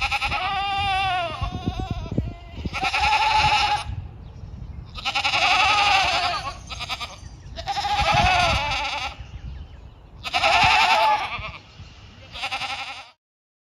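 Goats screaming from weaning, just separated from their mothers and kids: six loud, long bleats one after another, ending suddenly.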